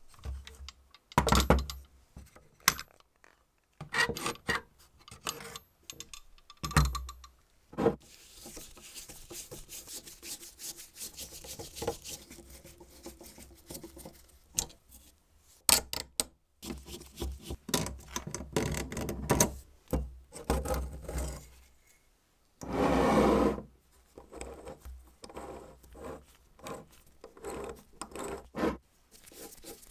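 Disassembly of a rusty tinplate toy-train locomotive: its metal frame, screws and nuts click, clink and scrape against each other and against hand tools. In one stretch the rubbing is steady, and there is one louder scrape lasting about a second.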